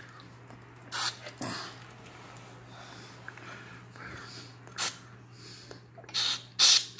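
Short hissing bursts of aerosol contact cleaner sprayed onto a subwoofer amplifier's volume and gain potentiometers to clean their scratchy, crackling contacts: about four squirts, the last two close together near the end and the loudest.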